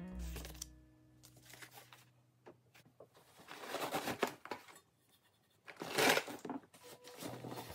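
Packaging wrapped around cookware rustling as it is handled and pulled inside a cardboard shipping box, in several bursts, loudest about six seconds in. Background music fades out in the first second.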